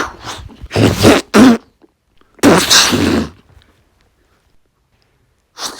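A person making fist-fight sound effects with the mouth: a quick run of short punch and grunt noises in the first second and a half, then a longer strained burst lasting most of a second about two and a half seconds in.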